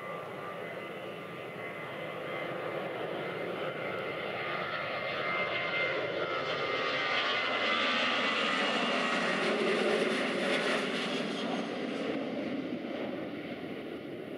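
A Boeing 737-800's two CFM56-7B turbofan engines at takeoff thrust during the takeoff roll. A whine over a steady rush grows louder as the airliner speeds past, peaks about two-thirds of the way in with a sweep down in pitch as it passes, then eases near the end.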